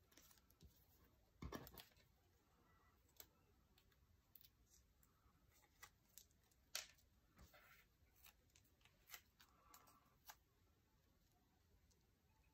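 Faint desk-top handling of planner paper pages and stickers: scattered light clicks and rustles, with one duller knock about one and a half seconds in.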